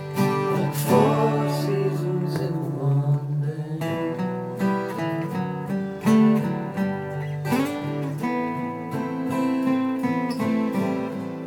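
Acoustic guitar strummed in an instrumental passage of a song, without singing.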